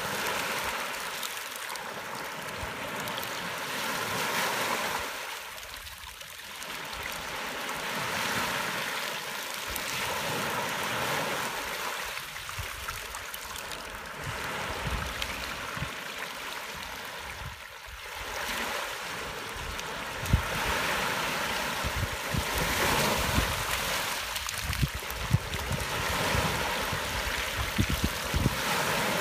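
Small waves washing up a gravel beach crowded with spawning capelin and draining back, the wash swelling and ebbing every five or six seconds. Short low thumps of wind on the microphone join in over the last third.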